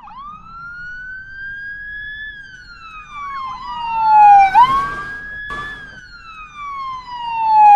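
Ambulance siren in a slow electronic wail: the pitch climbs for about two seconds, then sweeps down, twice, each time loudest as it bottoms out. There is a brief crackle about five and a half seconds in.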